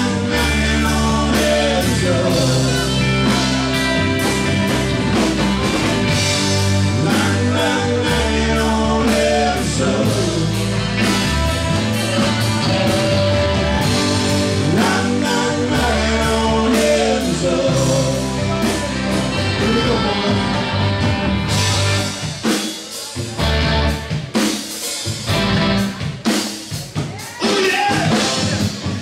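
Live rock band playing an instrumental passage with electric guitar, bass guitar, drum kit and saxophone. About 22 seconds in, the low bass drops away and the drums carry on in a stop-start pattern of sharp hits.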